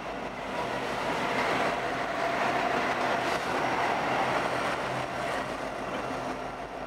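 Canadian National freight train passing close by: the trailing diesel locomotive rumbles past, then freight cars roll by on the rails. The sound swells about a second in and is loudest in the middle, then eases slightly.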